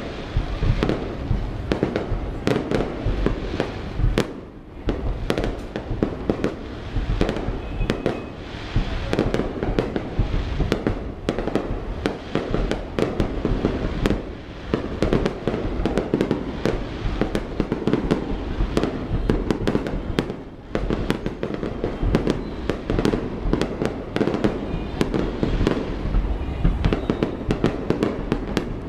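Aerial fireworks display: a dense, continuous barrage of shell bursts and crackling bangs, with brief lulls about four seconds in and around twenty seconds in.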